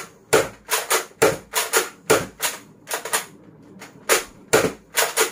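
Nerf Rival Roundhouse XX-1500 spring-powered blaster fired again and again, a string of sharp plastic clacks about two or three a second, with a short pause a little past three seconds in.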